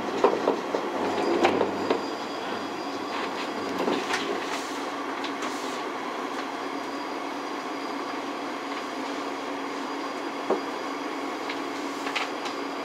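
Skyrail rope-driven suspended people-mover car running along its overhead guideway into the station, heard from inside the car. A steady running hum carries rattling and knocks in the first two seconds and a few sharp clicks later on.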